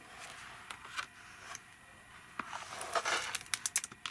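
Hardcover picture book being handled and closed: paper pages rustling and turning, with a louder rustle about three seconds in followed by several quick taps and clicks as the book is shut and laid down.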